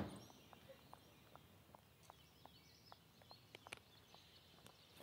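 Faint footsteps of high heels on a concrete path, a light click roughly every third of a second, with small bird chirps behind. A loud thump right at the start fades away.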